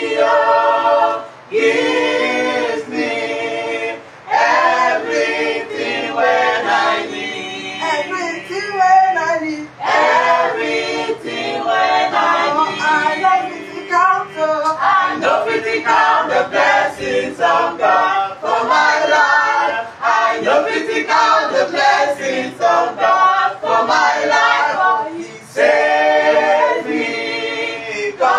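A small mixed group of young male and female voices singing a gospel worship song together, unaccompanied.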